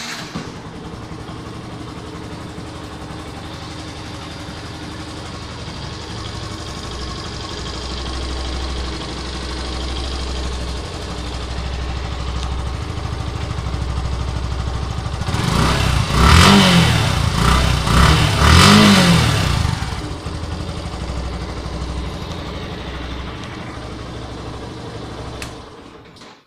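Yamaha FZ 2.0's 149 cc air-cooled, fuel-injected single-cylinder four-stroke engine, with a note that is not very loud: it idles steadily, is revved twice in quick succession about two-thirds of the way through, settles back to idle, and is switched off just before the end.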